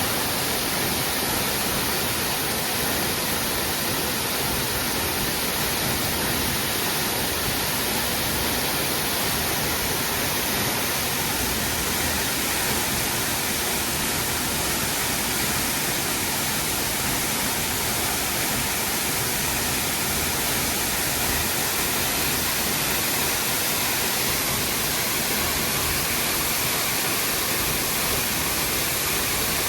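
Waterfall rushing: a steady, loud wash of falling water with no change in level.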